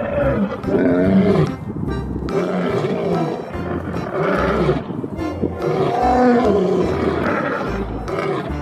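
Lion roaring in about three long, growling roars, over background music.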